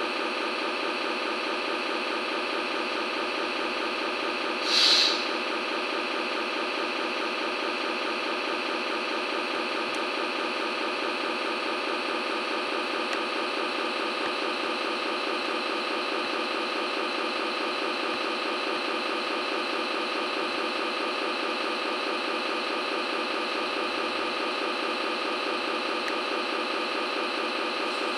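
Sound module of a scale RC MAN tractor unit playing a steady diesel-engine idle through its small speaker, thin with no deep bass. A short hiss about five seconds in.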